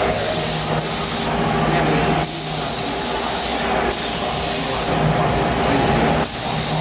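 Air-fed gravity-cup paint spray gun hissing steadily as it lays down a coat of paint, the spray easing off briefly a few times.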